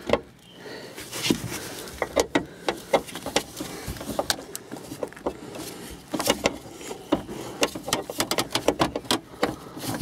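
Irregular clicks, knocks and light rattles of a gearshift cable and a metal cable-gearshift mechanism being handled, as the cable is pushed back down through the floor hole.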